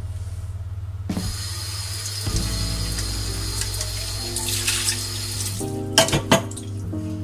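Kitchen tap water running into a sink: a steady hiss that starts about a second in and stops about four seconds later. Two sharp clinks follow near the end.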